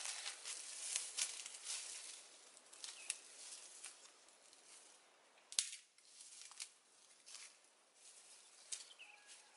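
Footsteps crunching and rustling through dry leaves and undergrowth: a string of crackles that fade as the walker moves away, with one sharp snap about five and a half seconds in.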